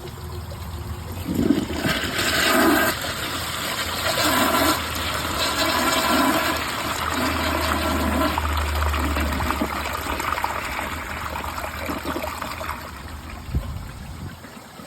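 2011 Glacier Bay toilet flushing with its tank filled above the water line: rushing water with gurgles as the bowl siphons, easing off near the end. The bowl comes close to siphoning a second time but does not.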